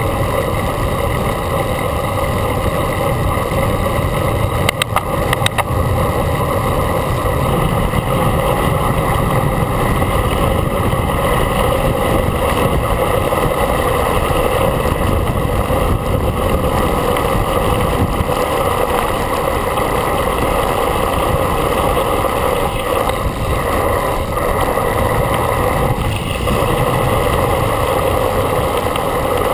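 Steady rush of wind buffeting the camera microphone on a road bike descending fast, with a few quick clicks about five seconds in.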